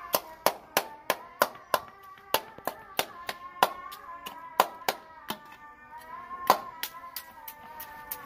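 Steel spoon tapping and scraping against a steel bowl, about two to three sharp clinks a second, as boiled eggs are chopped into a mash of chicken and rice. Music with a long, held melody plays underneath.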